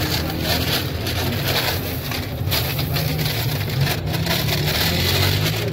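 Busy street-stall background: a steady low engine-like hum with a few light clicks and scrapes over it.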